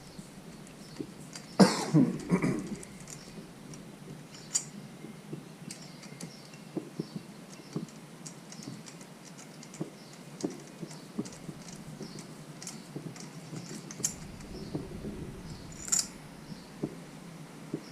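Small metal engine parts and tools being handled, with scattered light clicks and taps and a louder metallic clatter about two seconds in.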